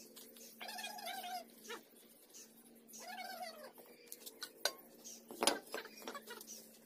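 Two drawn-out high whining calls from an animal, one held level and one falling away, then two sharp clinks in the second half, the second the loudest, typical of bricks knocked together as they are handled.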